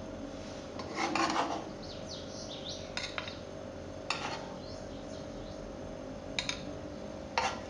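A metal spoon clinking and scraping against a frying pan and plate as syrup-soaked candied orange slices are lifted out. There is a short scrape about a second in, then a handful of sharp clicks, over a steady hum.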